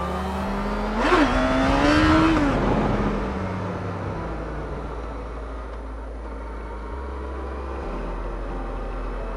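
Motorcycle engine accelerating, its pitch rising for about two seconds, then easing off to a steady cruise.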